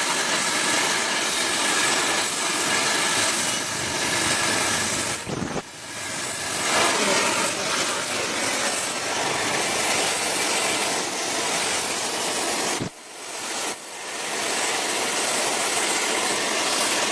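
Oxy-fuel gas torch flame hissing steadily while it heats a steel chassis bracket red-hot, dropping away briefly twice, about five and a half and thirteen seconds in, then building back up.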